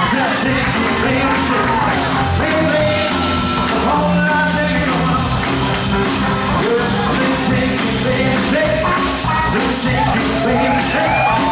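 Live band playing upbeat dance music, with a steady drum beat and a walking bass line.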